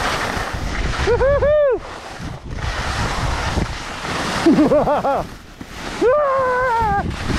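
Skis scraping and sliding over slushy, icy spring snow, with wind rushing across the microphone. A high voice gives short wordless rising-and-falling calls about a second in, around the middle and again near the end.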